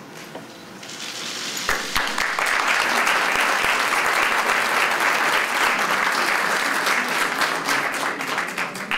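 Audience applauding, many hands clapping together, building up over the first two seconds and then holding steady.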